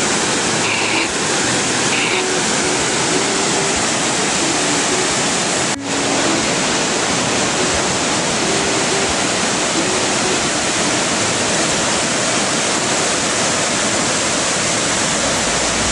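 Waterfall: a large cascade plunging into a pool and churning over rocks, a loud, steady rush of falling water, briefly broken once about six seconds in.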